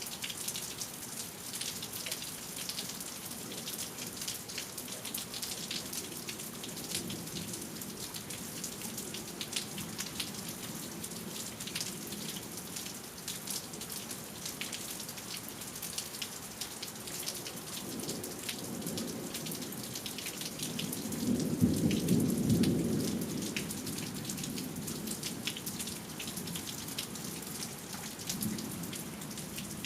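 Steady rain from a thunderstorm, with close drops ticking sharply. About two-thirds of the way through, a roll of thunder rumbles up, is loudest for a couple of seconds, then fades back under the rain.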